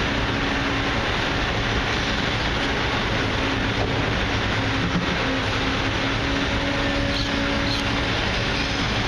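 A steady machine drone: even rushing noise with a low hum underneath. There are no knocks or sudden sounds.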